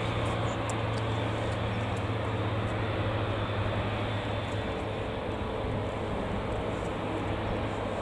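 Boeing 787-9 jet engines running steadily at taxi power: a constant low hum under an even rush of engine noise.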